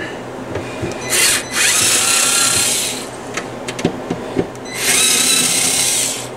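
Cordless electric screwdriver whining in two bursts of about a second and a half each, backing screws out of the receiver's sheet-metal bottom cover, with a few small clicks of handling between the bursts.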